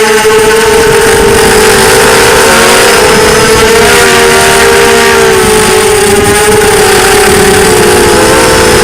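Four brushless motors and propellers of a 250-size FPV racing quadcopter (Arris 2204 2300KV) whining in flight, heard through the onboard camera. The sound is loud and steady, with several close pitches that drift up and down and cross one another as each motor's speed shifts.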